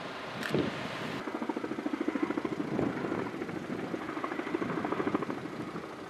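Firefighting helicopter's rotor beating overhead in a fast, even pulse, which rises from about a second in and fades near the end. A short knock sounds about half a second in.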